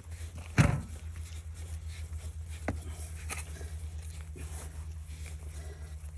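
A sharp knock about half a second in, then a few lighter clicks, as a stainless-steel submersible well pump is handled. A steady low pulsing hum runs underneath.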